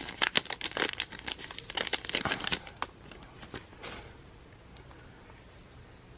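Crinkling and rustling of packaging being handled while a freebie card and sticker are unwrapped: dense crackles for about three seconds, a few more, then it stops about four seconds in.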